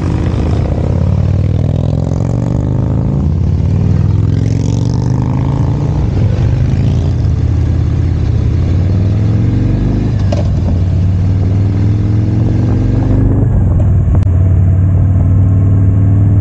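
Motorcycle engine and exhaust heard from on the bike while riding, the engine note rising and falling several times with throttle and gear changes.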